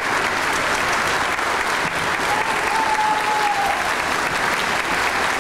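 Concert audience applauding steadily, a dense even clapping. About two seconds in, a single held note rises above the clapping for about a second and a half.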